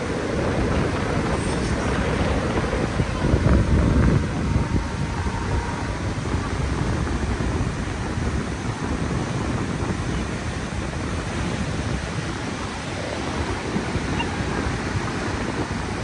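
Rough sea surf breaking and washing in foam up to a sea wall: a steady rush with a louder surge about three to four seconds in, and wind rumbling on the microphone.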